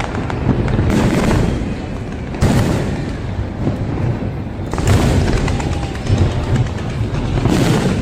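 Fireworks display: heavy booms land about every two to three seconds, each followed by rumbling and crackle, with music playing throughout.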